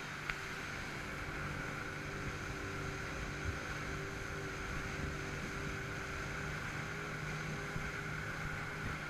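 Sea-Doo personal watercraft engine running steadily at about 6000 rpm while cruising at speed over light chop, its pitch holding even, with a few faint knocks.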